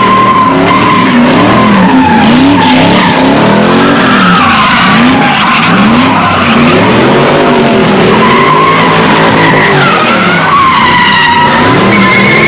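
A car doing donuts: tires squealing in a steady, slightly wavering screech while the engine revs rise and fall over and over, very loud.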